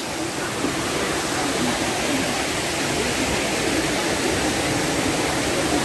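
Steady rush of a small waterfall and its stream.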